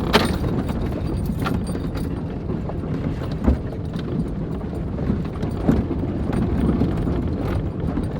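1998 Jeep Wrangler Sahara, heard from inside the cab, crawling over a rough, rocky trail: a steady low rumble with irregular knocks and rattles as it bounces, the sharpest about three and a half seconds in.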